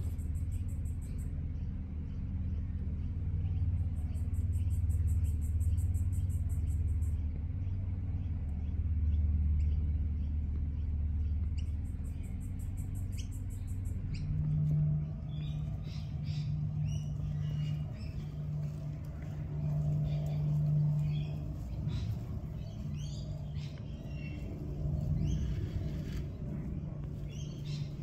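Outdoor garden ambience: a low, steady rumble with a hum. Small birds chirp repeatedly in the second half.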